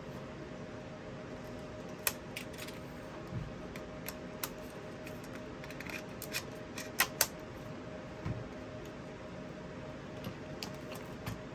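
Sony MZ-EP11 MiniDisc player being handled: irregular small clicks and taps as its lid is flipped open and snapped shut, the loudest a quick pair of clicks a little past halfway. A steady hum runs underneath.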